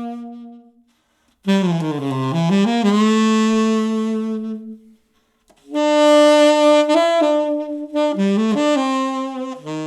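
Solo saxophone playing long held notes in three phrases with short breaks between them, played back through a compact Genelec studio monitor and picked up by a single microphone.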